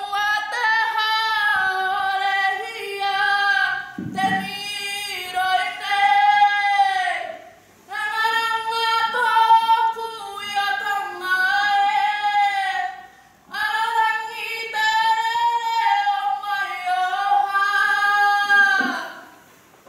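A woman's voice singing unaccompanied in long held phrases with short breaks between them, several ending in a falling glide; the last phrase falls away about a second before the end.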